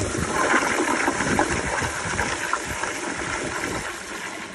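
Kohler Kingston wall-hung toilet flushing through its flushometer valve: a strong rush of water swirling down the bowl, fading toward the end as the flush finishes. The single flush clears a washcloth from the bowl.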